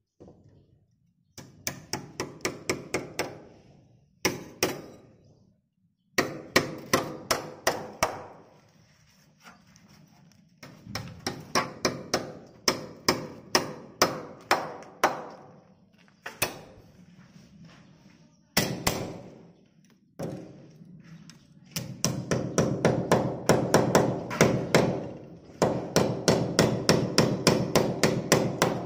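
Hammer driving small nails to fix the metal anchor tabs of an aluminium window frame into the brick and mortar. The quick strikes come in runs of several a second, with short pauses between runs.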